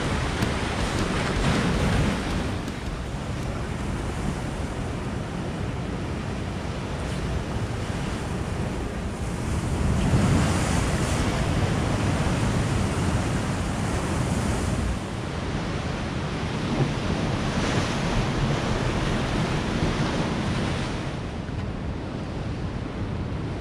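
Ocean surf breaking and washing up on a beach, swelling every several seconds, with wind rumbling on the microphone.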